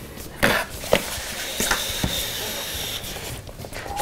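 Cardboard box handled and opened: two light knocks, then about two seconds of scraping as the inner box slides out of its printed sleeve, with a thump at the end.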